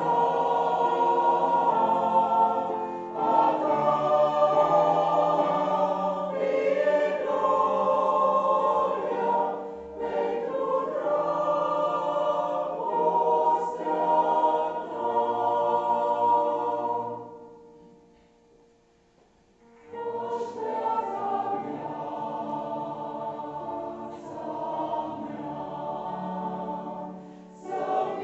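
Mixed choir of men's and women's voices singing a church song together. The singing breaks off for about two seconds roughly two-thirds of the way through, then starts again.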